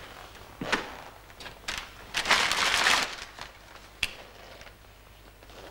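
Handling noises: a few light knocks and rustles, then a louder rustle about two seconds in lasting most of a second, and a single sharp click about four seconds in.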